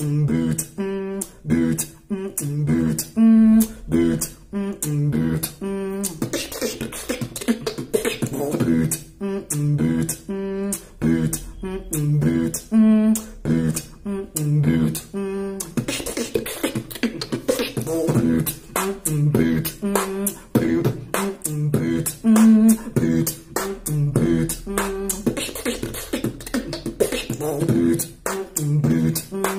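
Solo human beatboxing: a fast, steady rhythm of sharp mouth-made drum hits and clicks over a pitched vocal bass line.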